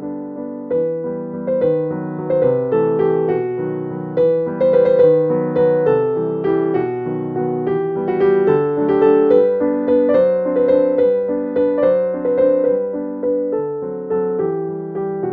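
Background piano music: a gentle melody of struck notes over soft chords.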